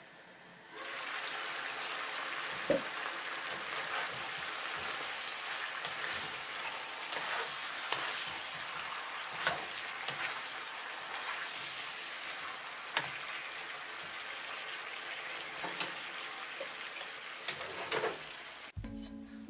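Chicken drumsticks sizzling in a frying pan in a thick soy and ginger sauce, stirred, with a handful of sharp knocks and scrapes of the utensil against the pan.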